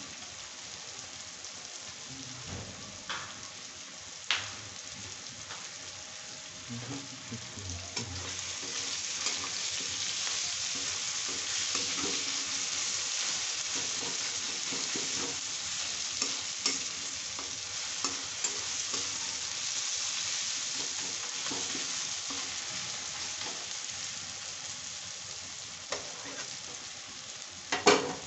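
Sliced onions and tomatoes sizzling in oil in a kadai while a spatula stirs and scrapes them around the pan. The sizzle grows louder partway through and eases off later, with a few sharp knocks of the spatula against the pan, the loudest near the end.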